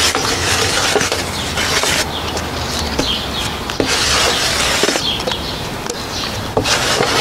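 Plastic spreader scraping and smearing body filler (Bondo) across a mixing board in long repeated strokes, a scratchy smear that swells and eases every second or two. The filler is being worked until it turns an even pink, free of streaks.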